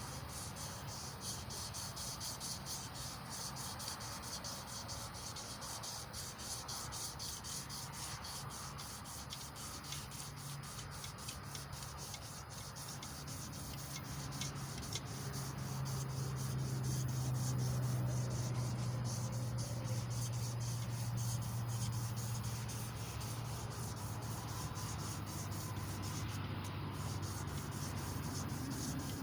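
Emery cloth rubbing on a small block Chevy 350 crankshaft in quick, repeated back-and-forth strokes, sanding the crank's surface. A low steady hum grows louder in the middle.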